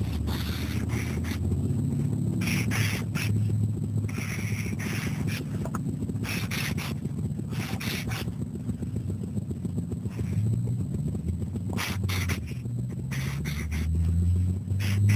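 A black Sharpie marker drawing on sketchpad paper: short, irregular scratchy strokes of the felt tip across the page. A low steady hum runs underneath.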